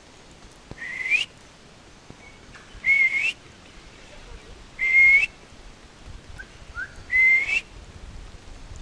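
A person whistling four short, breathy notes about two seconds apart, each held on one pitch and bending upward at the end.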